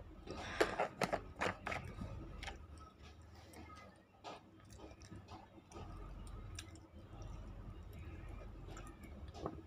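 Close-miked crunching and chewing of half-roasted, unshaped nakumatt (edible baked clay) in the mouth. A quick run of sharp crunches comes in the first two seconds, followed by scattered lighter chewing clicks.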